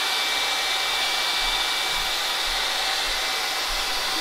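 Handheld hair dryer running steadily, blowing warm air onto a leather knife sheath to warm it before conditioning. A thin high whine sits over the even rush of air.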